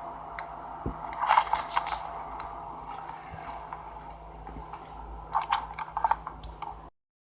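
Hands handling small hardware: scrapes and clicks over a steady electrical hum, in a cluster about a second in and another around five to six seconds in, then the sound cuts off abruptly.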